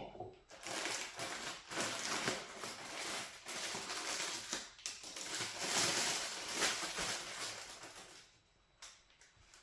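Crackly, rustling, crunching food-preparation noise that runs for about eight seconds, full of small crisp ticks, and dies away near the end.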